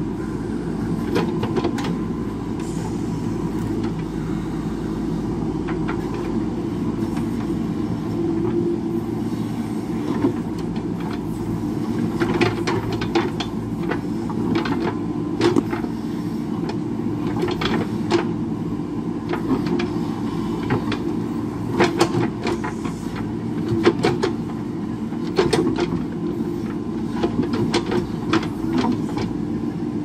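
JCB backhoe loader's diesel engine running steadily under load while the backhoe digs, with repeated sharp knocks and clatter of rock and stone, thickest in the second half.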